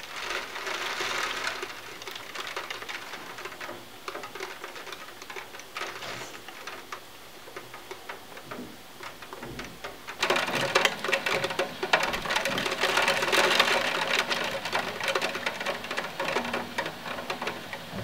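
Heavy rain pattering and ticking rapidly against a window, becoming much heavier and louder about ten seconds in.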